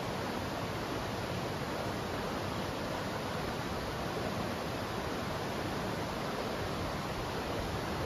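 Steady rushing of flowing river water, an even hiss that does not change.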